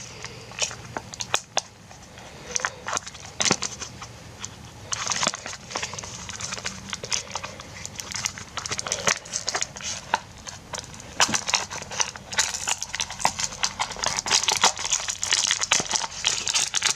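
Blind-box packaging being handled and opened by hand: crinkling and rustling with many sharp clicks and crackles, busiest about five seconds in and again over the last few seconds.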